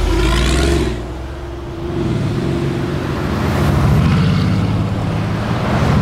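Brabus-tuned Mercedes performance car's engine and exhaust under throttle, loud for about the first second, easing off, then building again as the car pulls.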